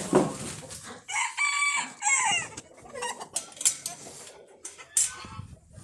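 A rooster crows once, about a second in: a long call that holds steady and then wavers, among clucking chickens. A few short knocks follow later.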